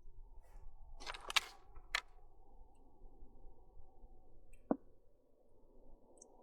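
Handling clicks and knocks from work on the truck's front hub: a short scraping burst with clicks about a second in, a sharp click at two seconds, and one knock near the end, over a faint low steady background.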